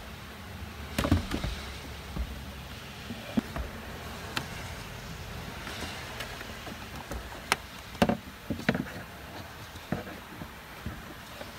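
Scattered sharp clicks and knocks of parts being handled and fitted back around the SUV's sliding seat rail, with a cluster of knocks about eight seconds in.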